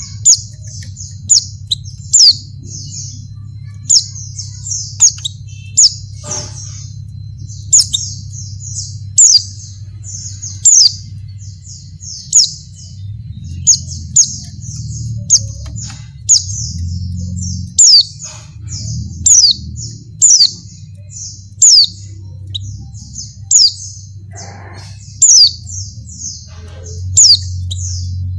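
White-eye (pleci) calling: a fast, unbroken run of short, high chirps, with a sharper, louder down-slurred note every second or two, over a low steady hum. The uploader presents it as a female in breeding condition calling for males.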